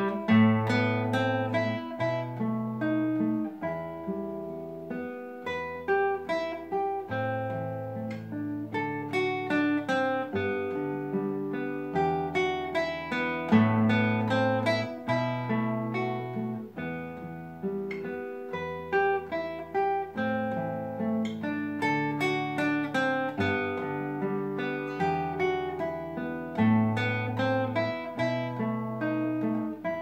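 Solo classical guitar with nylon strings, played fingerstyle: a melody of plucked notes over long-held bass notes.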